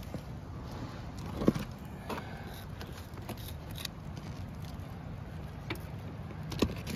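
Tin snips cutting through an asphalt shingle, a few sharp snips and clicks with the loudest about a second and a half in, as the shingle's top corner is trimmed back where it meets an open metal valley so water running down the valley won't catch it.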